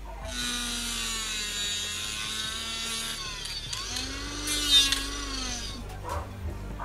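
Small 775 DC motor spinning an abrasive cutting disc, a high whine with many overtones. Its pitch sags and recovers about four seconds in, with a short louder grinding scrape near the five-second mark as the disc bites into the workpiece, and the whine stops shortly before the end.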